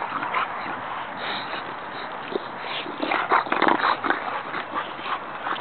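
Bulldog puppy sounds over a steady hiss, with a cluster of short, sharp noises a little past halfway, the loudest part.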